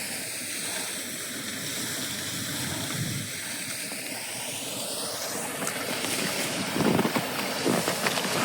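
Steady rush of a partly frozen waterfall's running water, with a few soft low thumps near the end.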